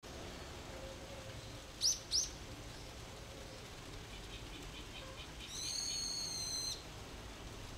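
Birds calling: two quick loud chirps, then a fast run of faint ticks and one long held whistle, over a faint steady background hiss.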